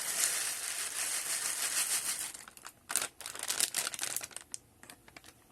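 Steady hiss of milk boiling in a steel electric kettle, which dies down about two seconds in, followed by irregular dry crackling and rustling as roasted vermicelli is added.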